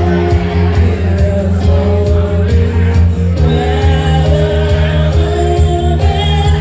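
A woman singing into a microphone over loud backing music.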